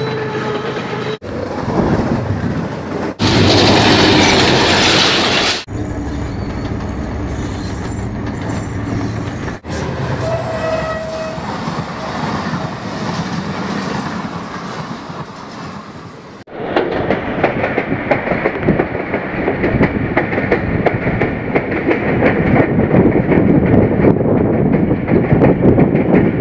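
Pakistan Railways diesel locomotives and passenger coaches rolling past close by, in several short cuts, with a very loud rush of noise about three to five seconds in. From about sixteen seconds in, the steady clatter of wheels over the rails heard from the open door of a moving passenger coach.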